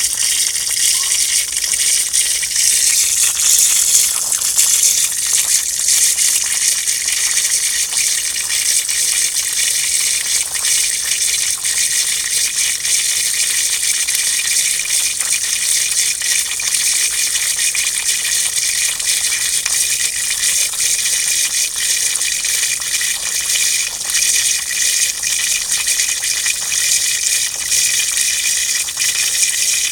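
Water gushing out in a steady, unbroken stream.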